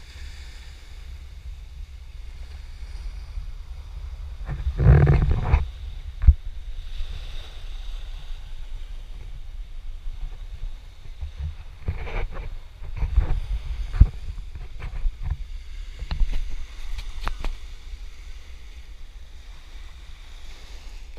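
Wind buffeting a GoPro HERO4 Black's microphone as a low rumble, with stronger gusts about five seconds in and again between about twelve and seventeen seconds, and a few short knocks. Small waves wash onto a sandy beach underneath.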